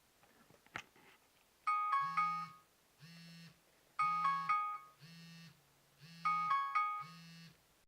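Phone ringtone or alarm: a short bell-like melody played three times, with the phone's vibration buzzing in short pulses alongside it. A single click comes about a second in, before the first phrase.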